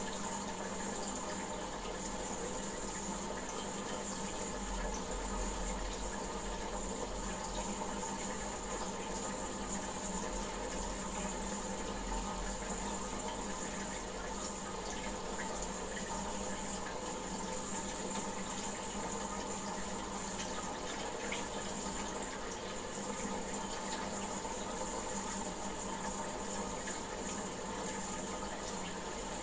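Aquarium water circulating steadily: a continuous running-water sound with a faint steady hum under it.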